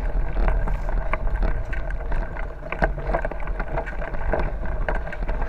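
Wind buffeting the microphone as a steady low rumble, with the rattling and crunching of a bicycle rolling over a rough dirt track: many short clicks and knocks.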